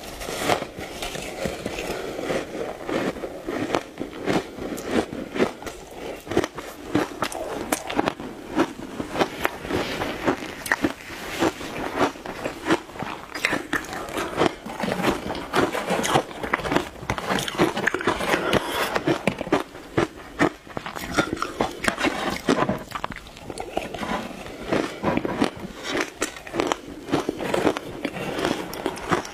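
Close-miked crunching of matcha-dusted shaved ice as it is bitten and chewed, a dense irregular crackle of sharp snaps throughout.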